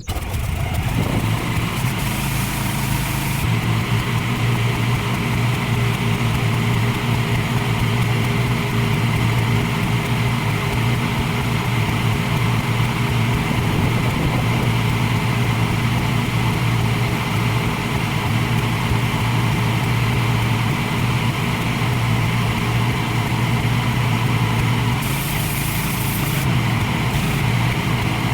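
Pressure washer starting up and running steadily, a low motor hum under a broad hiss of spray. The high hiss surges briefly about two seconds in and again near the end.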